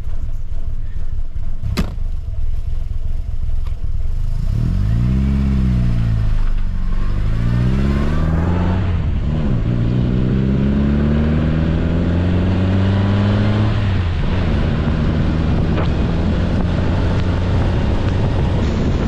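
1964 MG Midget's BMC A-series four-cylinder engine pulling on the road, heard over a steady low rumble of wind and road noise. A few seconds in, the revs rise and fall, then climb again with short breaks at gear changes, make a long steady climb, and drop back about two-thirds of the way through as the throttle eases.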